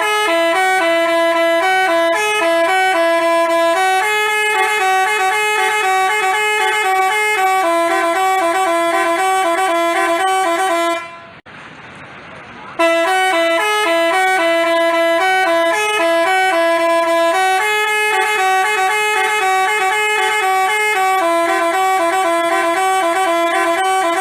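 Basuri telolet bus horn playing its multi-note melody, several horn tones sounding together and changing note every fraction of a second. The same tune of about eleven seconds plays twice, with a short break about eleven seconds in.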